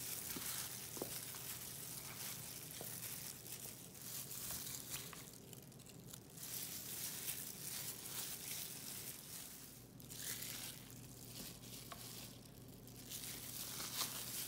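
Plastic-gloved hands tossing chicken wings in seasoned flour in a metal bowl: soft crinkling of the gloves and dry rustling of the flour, in spells with short lulls.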